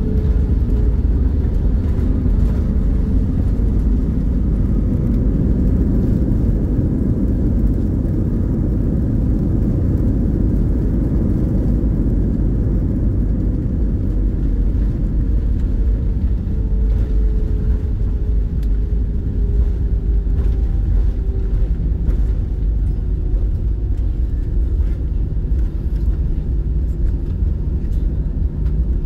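Airbus A319 cabin noise during the landing roll: a loud, steady rumble of the wheels on the runway and the engines. A faint tone slowly falls in pitch as the aircraft slows.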